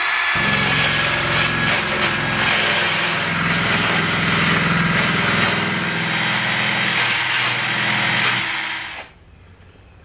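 Cordless drill spinning a wire wheel brush against the painted steel side of a refrigerator cabinet, scrubbing off rust and paint to prepare it for body filler. The drill's whine and the bristles' hiss stop suddenly about nine seconds in.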